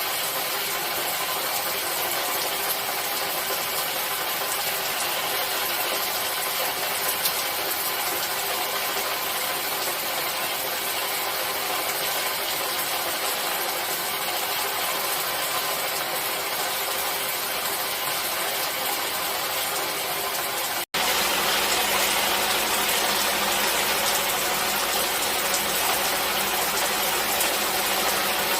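Steady rain noise, an even hiss. About two-thirds of the way through it cuts off for an instant and switches to a different, slightly louder recording of falling water.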